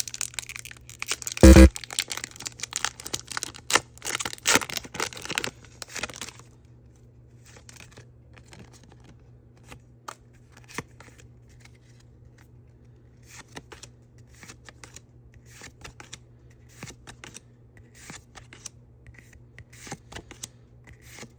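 Foil wrapper of a Pokémon TCG booster pack crinkling and tearing open for the first six seconds or so, with a loud knock about a second and a half in. After that, only soft intermittent flicks and rustles as the cards are slid and sorted by hand, over a faint steady low hum.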